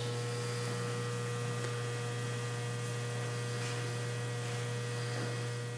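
Steady low electrical hum with a thin higher tone over it, unchanging throughout.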